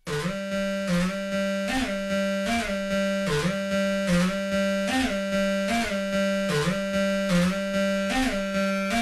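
Korg Volca Drum synthesizer playing a looping sequenced pattern: a droning, buzzy pitched tone with a short pitch swoop and a percussive hit about every 0.8 seconds. It starts abruptly.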